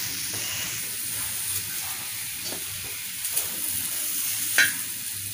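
Whole tomatoes sizzling with a steady hiss as they char on a hot iron tawa. A few light clicks sound as they are picked off with wooden tongs and set into a steel plate, the sharpest about four and a half seconds in.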